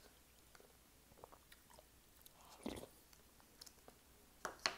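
Faint chewing and mouth sounds of someone eating broccoli cheese soup, with a louder soft mouth sound about halfway through and a couple of sharp clicks near the end as a metal spoon dips into the soup cup.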